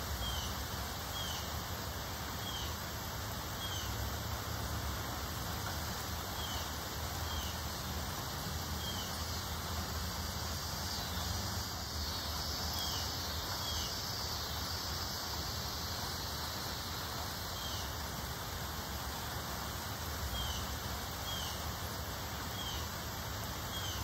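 Wind rustling through a leafy tree in a steady hiss, with a bird's short rising chirp repeating every second or two.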